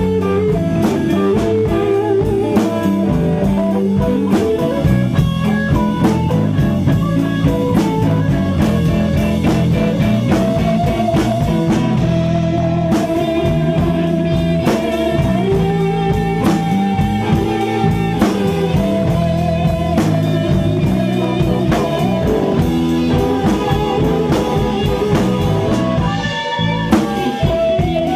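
Blues band playing live: an amplified Stratocaster-style electric guitar over a drum kit, with a few long held guitar notes around the middle.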